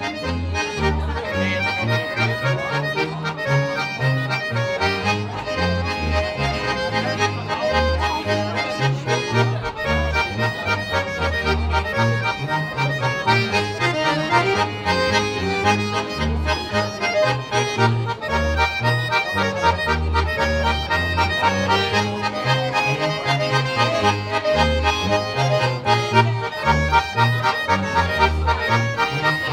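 Background music led by an accordion, in a traditional folk style, over a steady, regular bass line.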